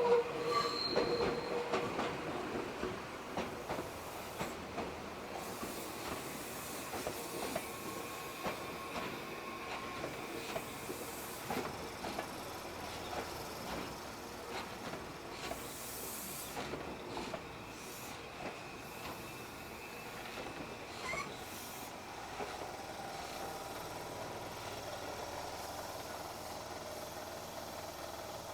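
Meitetsu electric train's wheels squealing on a tight curve, with a loud squeal in the first couple of seconds and fainter whines later. Rapid clicks and rumble of the wheels run under it, and the whole sound slowly gets quieter.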